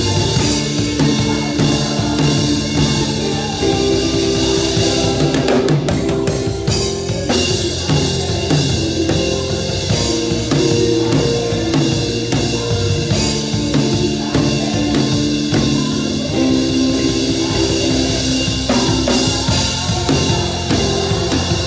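Drum kit played with sticks in a live band: bass drum, snare and Sabian cymbals keeping a steady groove under held chords from the rest of the band.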